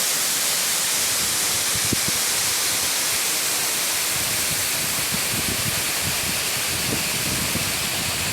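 Waterfall rushing: a steady, loud hiss of falling water, with some irregular low rumbling coming in about halfway through.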